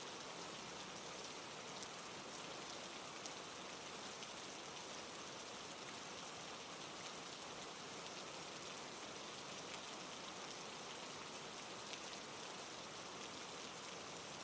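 Steady rainfall with scattered drop ticks.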